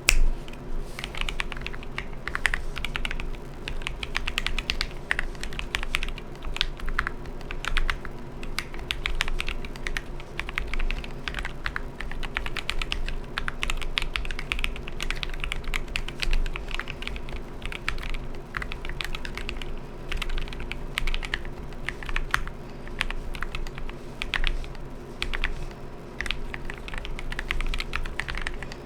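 Continuous typing on a gasket-mounted Fancy Alice 66 ergonomic mechanical keyboard with Gateron Milky Yellow Pro linear switches, a POM plate and MA-profile keycaps: a fast, irregular stream of keystrokes with no pauses.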